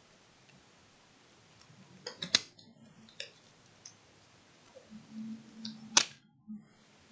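Disposable examination gloves being pulled off the hands: the rubber snaps sharply about two and a half seconds in and again, loudest, about six seconds in, with a few smaller clicks in between.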